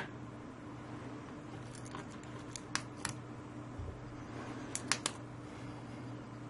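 Sharp small clicks from a 12 V cycle-timer relay module as its buttons are pressed and its relay switches: a loud click at the start, a few scattered clicks around two to three seconds in, and a quick cluster of three about five seconds in, over a faint steady electrical hum.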